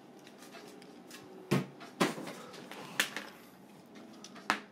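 Handling noise close to the microphone: four short knocks and scuffs, a little irregularly spaced, against faint room tone.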